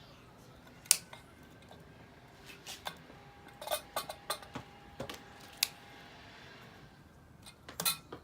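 Scattered sharp metallic clicks and clinks of small fixture parts being handled: one loud click about a second in, a run of clicks in the middle and a quick cluster near the end.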